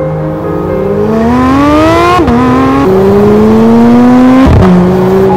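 Porsche 911 Turbo S twin-turbo flat-six accelerating hard through the gears. Its pitch climbs, then drops with quick upshifts about two seconds in, about three seconds in and again about four and a half seconds in, after which it holds steady.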